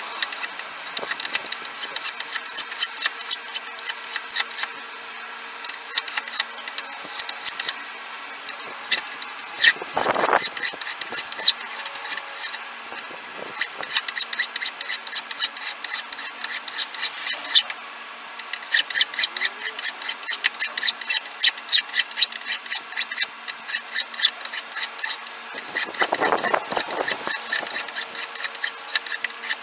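Hand file rasping across a hickory handle in quick back-and-forth strokes, several a second, in runs with short pauses, as the handle is shaped uniform around the tang. Twice there is a brief, louder whoosh.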